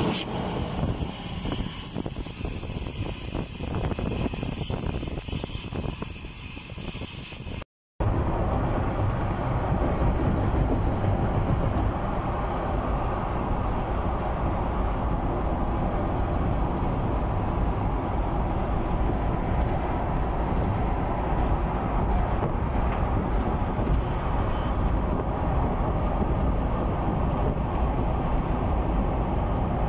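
A gas torch's flame hissing steadily, then, after a sudden cut about 8 seconds in, the steady low rumble of road and engine noise inside a car driving at highway speed.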